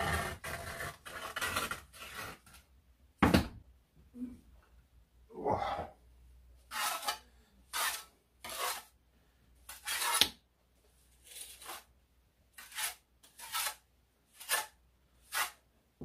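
Steel trowel scraping wet sand-and-cement mortar. First a run of scooping in a plastic bucket, then a sharp knock a little over three seconds in, then about ten short, separate scrapes as mortar is spread and a brick is buttered.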